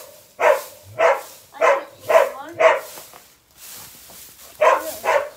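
A dog barking: five quick barks about half a second apart, a pause, then two more barks near the end.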